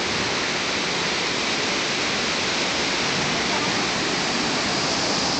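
Whitewater of the Breitach river rushing through a narrow rock gorge: a steady, loud, even rush of falling water.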